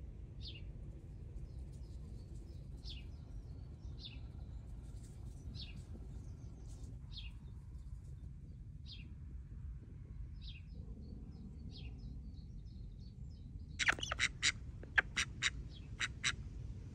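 A small bird repeats a short, falling chirp about every second and a half. About fourteen seconds in, white domestic ducks break in with a quick run of loud quacks.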